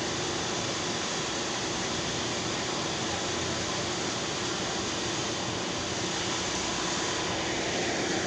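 Steady whir of a running fan, an even airy noise with a faint low hum and no change in level.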